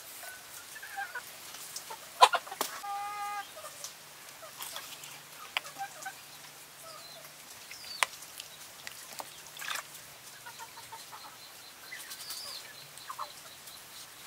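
Chickens clucking in the background, with one short pitched call about three seconds in. Scattered sharp clicks and taps of a cleaver blade and utensils against a ceramic bowl, the loudest about two seconds in.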